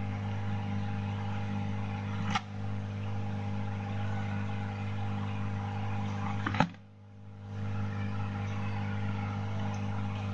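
Steady electrical hum of a soldering rework station running on the bench during hand soldering of a phone's charging-port connector. Two sharp clicks come about two and a half and six and a half seconds in, and the hum briefly drops out for about a second after the second one.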